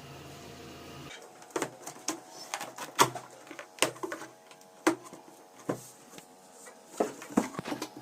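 A cardboard speaker box being opened and its packaging handled: irregular knocks, clicks and rustles of cardboard and paper, about a second in after a low hum stops.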